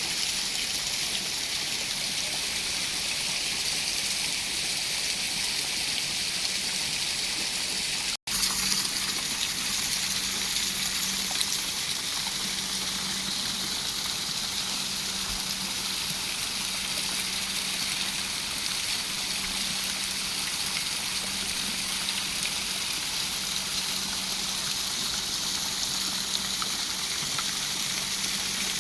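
Fountain water splashing and gushing steadily, with a low steady hum underneath. The sound drops out for an instant about eight seconds in, then resumes.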